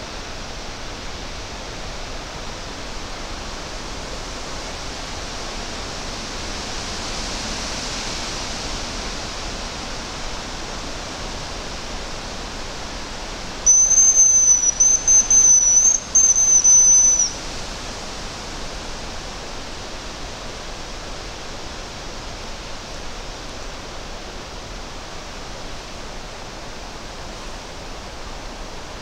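Hazel grouse decoy whistle blown once: a thin, high whistle about three and a half seconds long, broken into three parts by two short gaps, imitating a hazel grouse's call. Steady wind through the forest canopy runs under it.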